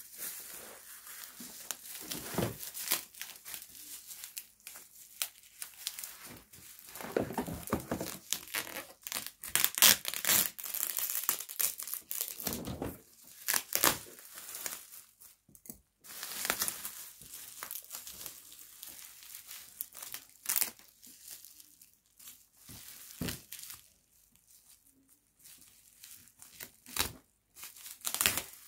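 Plastic bubble wrap crinkling and tearing as it is ripped by hand off a cardboard box, with the sticky tape holding it on tearing away. It comes in irregular bursts and is loudest about a third of the way in.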